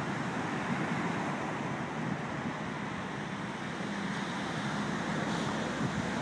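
Steady rushing wind buffeting the microphone, with surf breaking in the distance.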